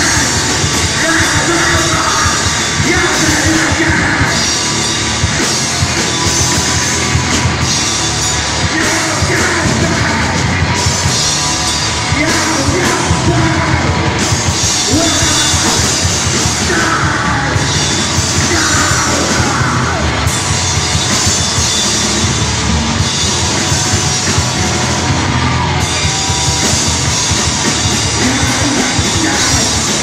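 Live blackened hardcore band playing loud, with electric guitars and drums under a yelled vocal.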